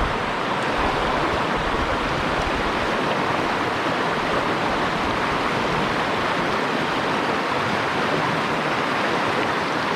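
River water rushing in a steady, even hiss.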